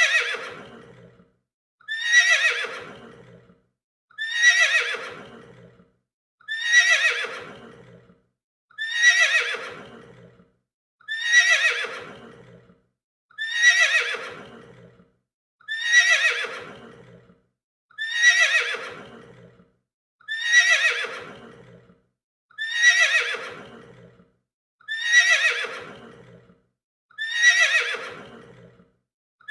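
A horse neighing: the same whinny repeated over and over, about one every two and a half seconds. Each starts sharply high and falls away in pitch and loudness.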